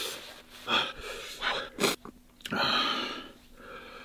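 A man blowing his nose into a tissue and sniffing, his nose running from extremely spicy fire noodles: several short blows and sniffs, a sharp one about halfway, then a longer hissing breath.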